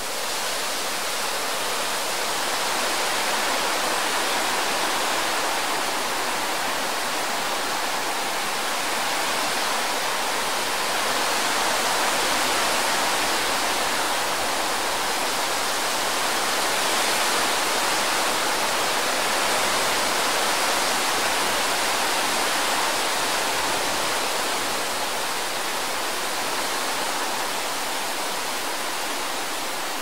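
Wind sound effect: a steady, rushing hiss of wind with little low rumble, swelling over the first few seconds and easing slightly near the end.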